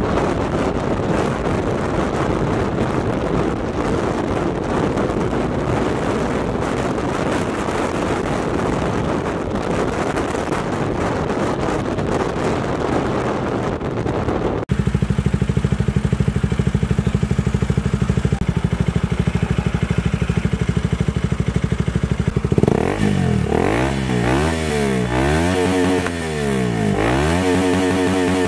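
KTM Duke 200's single-cylinder engine through an Akrapovic-branded aftermarket muffler, first heard riding along under wind noise. After a sudden change about halfway it idles steadily, then near the end it is revved in quick blips about once a second.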